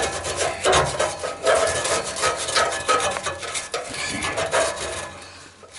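Brush scrubbing inside a Hallmark furnace during cleaning: a quick, irregular run of rasping strokes against metal that tapers off near the end.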